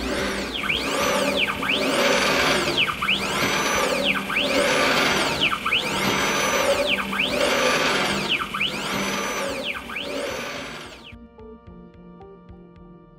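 Stepper motor driving the X-axis of a CNC-converted Sieg X3 milling machine at high step rates: a whine that rises, holds and falls about once every 1.3 s as the axis speeds up and slows down over and over. The motor stops about 11 s in, leaving soft ambient music.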